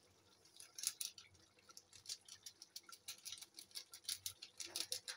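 Thick chicken curry simmering in a kadai, its bubbles popping in faint, irregular soft ticks and crackles that come thicker from about two seconds in.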